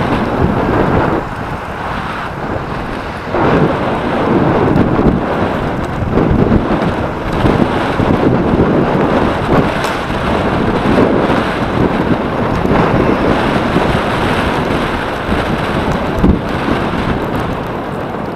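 Wind buffeting the microphone of a camera on a moving bicycle: a loud, gusty rumbling rush that swells about three seconds in, with road and traffic noise beneath.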